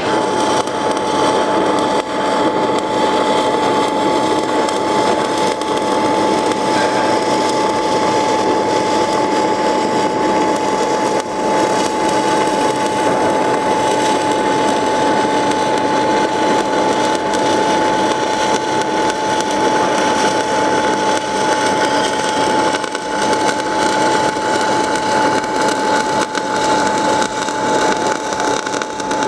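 MIG/MAG welding arc from a 500-amp semiautomatic welder burning continuously while it lays a fillet seam in the flat (boat) position: a steady, loud crackle. A thin steady tone runs underneath it.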